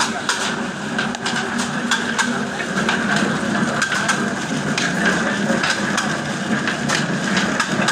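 A slow-running Kala diesel oil engine, rated at 275 rpm, and the screw oil expeller it drives run steadily as seed is pressed. A low hum carries a rapid, irregular clatter of knocks.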